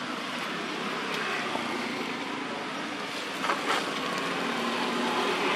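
Steady outdoor background noise with a faint low hum like distant motor traffic, and two brief clicks about three and a half seconds in.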